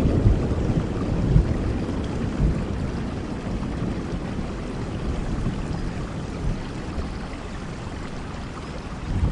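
Steady rain falling, with a low rolling rumble of thunder that dies away over the first few seconds and a brief low rumble again near the end.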